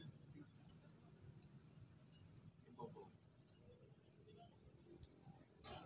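Near silence: faint high chirps repeating about four times a second through the second half, of the kind a cricket or small bird makes. A louder sound comes in just before the end.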